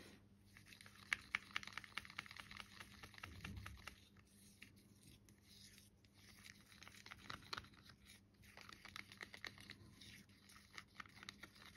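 Faint, irregular scraping and clicking of a stir stick working through thick acrylic pouring paint in a clear plastic cup, with a short lull a little before halfway.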